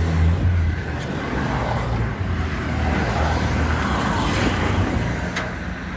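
A motor vehicle engine idling steadily close by, with road traffic noise behind it; a single short knock about five and a half seconds in.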